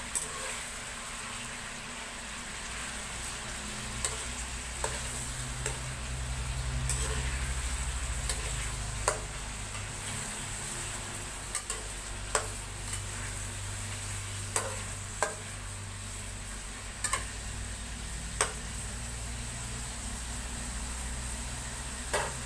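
Raw chicken pieces sizzling in hot oil in a metal karahi, with a steady hiss. A metal spatula clinks and scrapes against the pan about a dozen times at irregular intervals as the pieces are stirred.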